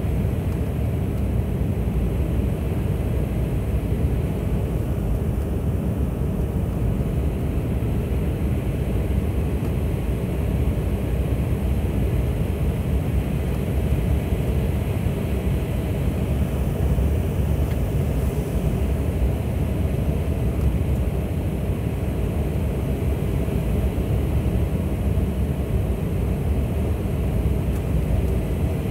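Steady noise of engines and rushing air inside a jet airliner's cabin on final approach. Even and unbroken, mostly low in pitch.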